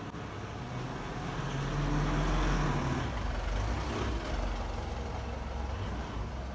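A motor vehicle driving past, its engine rumble swelling to its loudest about two to three seconds in and then slowly fading.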